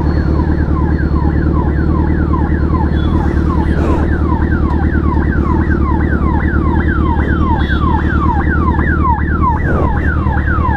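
Ambulance siren sounding in a rapid repeating pattern, about three falling sweeps a second, over the steady low running of a Suzuki Hayabusa's inline-four engine.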